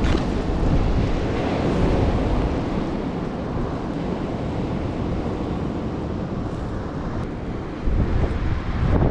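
Wind buffeting the microphone over the rush of ocean surf, with stronger low gusts near the end.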